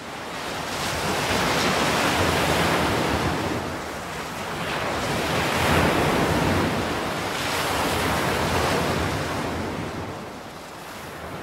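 Sea waves washing with a rush of wind, rising and falling in slow swells every few seconds.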